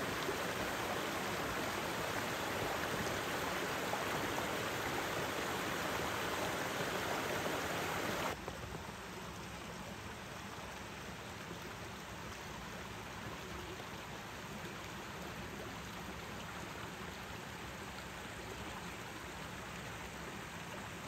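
Headwater mountain stream running over a rocky bed, a steady rush of water that drops abruptly to a quieter level about eight seconds in.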